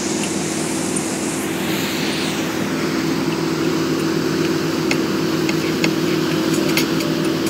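Wake boat's inboard engine running steadily under way, with the rush of churning wake water behind the boat.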